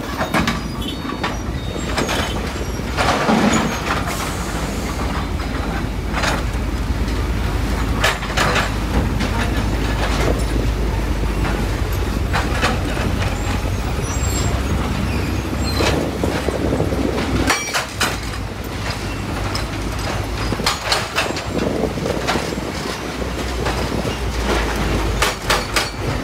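Komatsu PC300 excavator's diesel engine running steadily under load, with repeated sharp clanks and knocks of andesite rock being loaded into a steel dump-truck bed.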